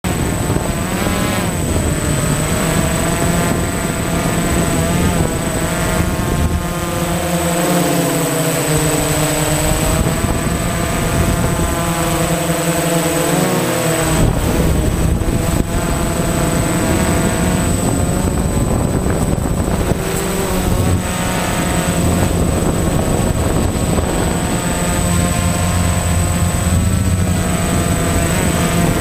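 DJI Phantom FC40 quadcopter's motors and propellers buzzing as heard from the drone's own camera, the pitch rising and falling with the throttle during low flight. A steady high-pitched whine runs beneath it.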